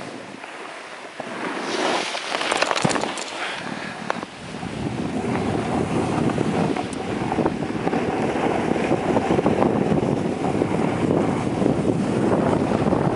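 Wind rushing over the microphone of a downhill skier, with the hiss of skis sliding on groomed snow. There is a burst of sharper scraping about two to three seconds in. From about five seconds on the rush is louder and steadier.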